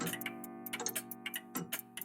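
Several old clocks, a cuckoo clock among them, ticking out of step with each other, about five ticks a second in all. Under the ticks a clock chime struck just before rings on and fades away.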